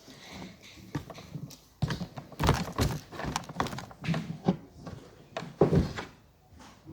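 Footsteps and thumps on a hard floor, an uneven run of knocks, the loudest one about five and a half seconds in.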